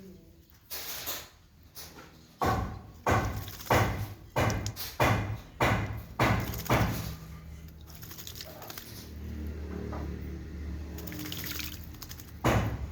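Oriental magpie-robin bathing in its cage's water dish: a run of about nine quick splashes as it beats its wings in the water, roughly two a second, then a lower, steadier noise.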